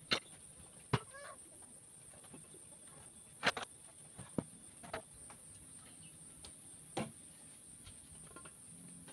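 Wooden boards knocking against each other and the trestle as they are lifted and shifted: about six separate knocks, the loudest about three and a half seconds in. A steady high-pitched insect drone runs underneath.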